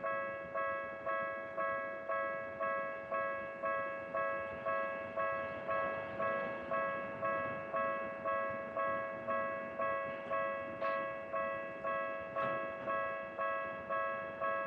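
Japanese railway level-crossing alarm ringing: an electronic bell tone repeating about twice a second, each strike fading before the next. A faint train rumble rises in the middle, with two sharp clicks near the end.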